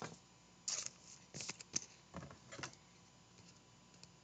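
A handful of faint, short taps and rustles of trading cards and plastic card holders being handled.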